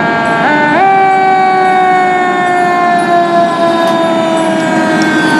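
Fire engine siren wailing: its pitch steps up twice within the first second, then slowly falls.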